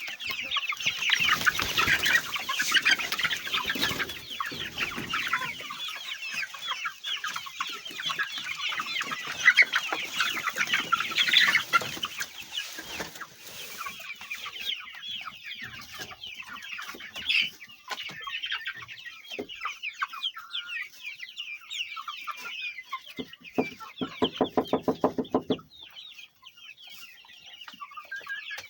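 A large flock of poultry calling all together, a dense din of overlapping high cheeps and clucks, louder in the first half. Near the end a lower, rapidly pulsing call stands out for about two seconds.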